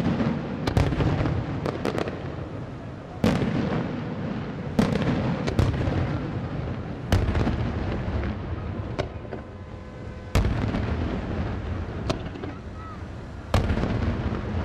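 Daytime fireworks display: aerial shells bursting in loud booms every few seconds, with smaller sharp cracks in between. Each boom trails off in a long rumble.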